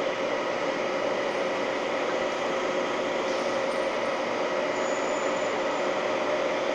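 Holzmann ED 1000 PI DIG metal lathe running at 770 rpm while turning a steel bar, a steady machine hum with a constant mid-pitched tone.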